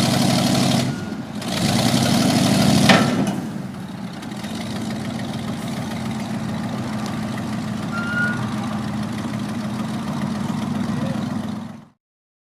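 1979 Champion spotter truck's Ford engine running, louder for the first three seconds with a sharp clack about three seconds in, then idling steadily until the sound cuts off abruptly near the end.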